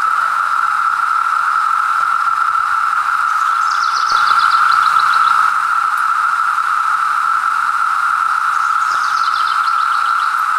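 Dense chorus of periodical cicadas (Magicicada), a loud, steady, continuous droning whine. Twice, a bird sings a short falling series of high notes over it.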